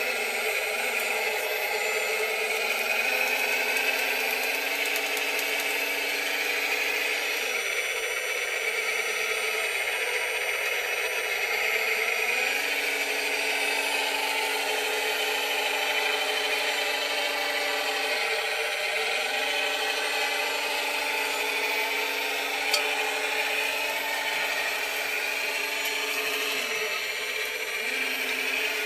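Radio-controlled scale model Caterpillar 966 wheel loader running, its small motors and gears giving a steady whirring grind. The pitch dips briefly several times as the machine changes speed while grading.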